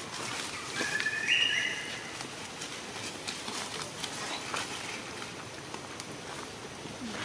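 Outdoor background of scattered small clicks and rustles, with a brief high-pitched animal call about a second in, the loudest sound, and a faint low falling note near the end.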